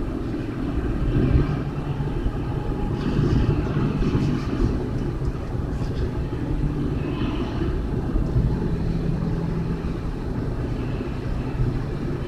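Car cabin noise at just under highway speed: a steady low rumble of engine and tyres on the road.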